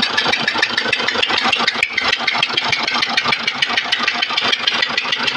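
Tata Harrier's four-cylinder diesel idling with a rapid, even ticking, about ten ticks a second. The noise comes from the No.2 injector, where a cut injector washer lets compression leak out past the injector.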